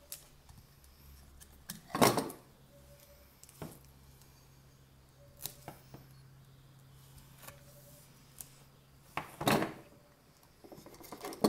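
Strip of double-sided craft tape being handled and cut beside its roll: two short rasping noises, about two seconds in and again near the end, with a few light clicks in between.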